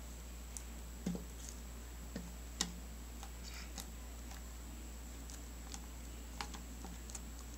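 Faint, scattered small clicks and taps as a hand presses and works a lump of glue-and-detergent slime on a glass tabletop, a few at a time at irregular intervals, over a low steady hum.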